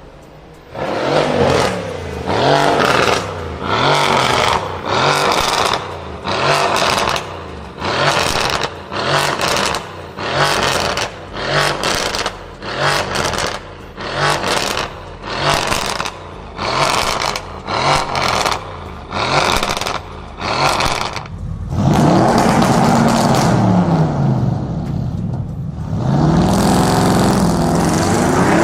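A car engine being revved hard through a loud performance exhaust in quick blips, about one a second, each rising and falling in pitch. Near the end come two longer, sustained revs.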